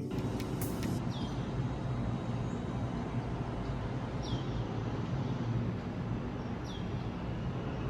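Steady engine and road noise of a car, with a low hum, heard with three short high squeaks that fall in pitch, about two and a half seconds apart.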